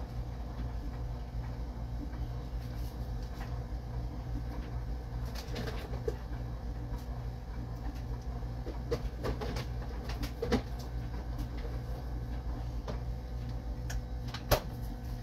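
Steady low hum of a room, with a few light clicks and taps scattered through it, one sharper tap near the end.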